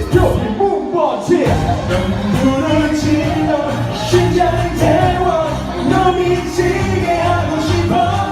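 A band playing a pop song, with a singer's voice carrying the melody over a steady beat.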